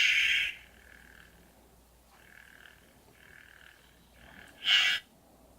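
Electronic lightsaber sound effects from a homemade lightsaber's small speaker: a loud burst that cuts off about half a second in, a faint wavering hum that comes and goes, and another short loud burst near the end.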